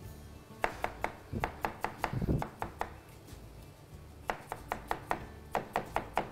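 Kitchen knife cutting vegetables into julienne strips on a cutting board: two runs of quick, sharp knife strokes with a short pause between them.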